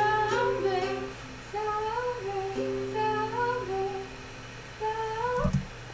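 Quiet background music: a light plucked-string tune, ukulele or guitar, over a steady low hum, with short melodic phrases and held notes.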